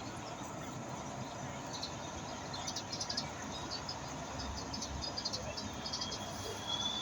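Insects chirping in short, rapid clicking trills over a steady outdoor hiss, with a thin, high, steady buzz coming in near the end.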